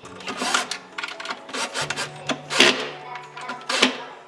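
Cordless drill driving screws into a cabinet door hinge's mounting plate. The motor runs steadily for about two seconds in the second half, with a few sharp clacks along the way.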